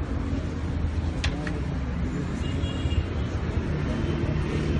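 Street noise: a steady low traffic rumble with faint voices in the background and a single sharp click a little past a second in.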